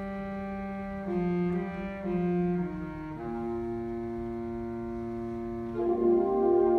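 Concert wind band playing a slow, sustained passage: held chords over a low line that changes note about once a second, swelling louder near the end.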